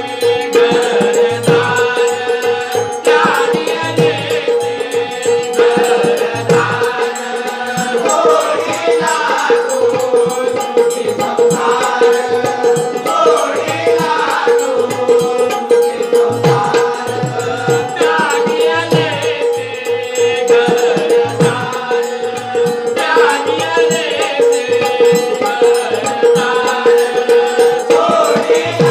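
Live Bhim geet folk music from a jalsa troupe: voices singing over a steady held drone note, with regular low drum beats and rattling percussion.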